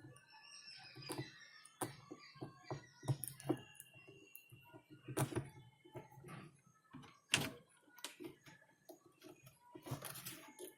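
A run of irregular clicks, taps and knocks, a few of them louder, with one short faint steady tone near the middle.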